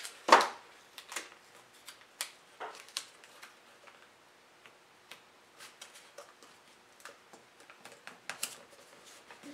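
Tape pulled off the roll with a short rip, then scattered light ticks and taps as strips are pressed onto a glued-up maple box to hold its joints while the glue sets.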